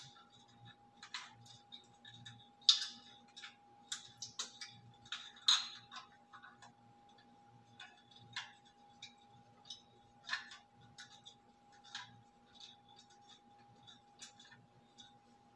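Irregular small clicks and taps as a phone is handled and fitted into the clamp of a floor-stand phone holder, over a faint steady hum.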